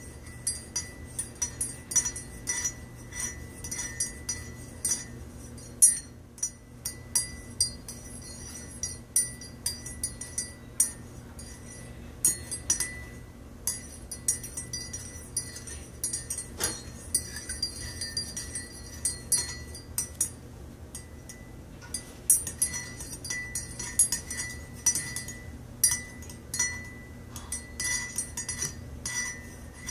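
Metal teaspoon stirring coffee in a ceramic mug, clinking rapidly and irregularly against the inside of the mug, each strike leaving a short ringing note. There are a couple of brief pauses.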